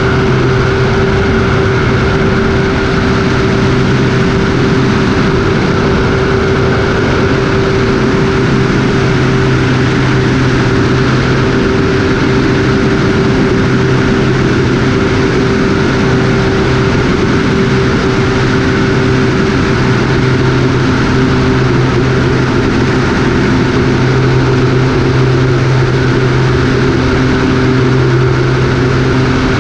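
Cessna light aircraft's piston engine and propeller running steadily with an even hum.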